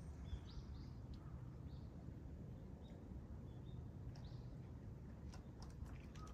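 Faint, scattered bird chirps, several short calls in the first four seconds or so, over a low steady outdoor rumble. A few faint clicks follow near the end.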